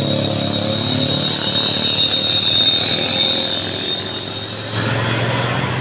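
Diesel engine of a Mitsubishi Fuso tanker truck pulling up a steep hill as it passes close and moves away, its sound fading. About five seconds in, another vehicle's engine grows louder as it approaches.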